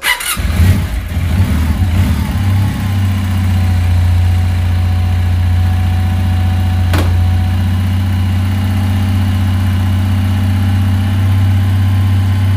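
Kawasaki W650's air-cooled parallel-twin engine starting up and running unevenly for about three seconds, then settling into a steady idle. A single sharp click sounds about seven seconds in.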